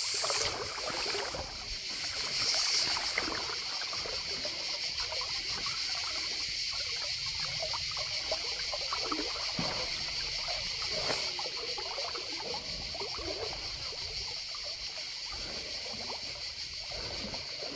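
Shallow river water trickling and flowing steadily, with light, irregular splashing from a diver swimming and wading through it.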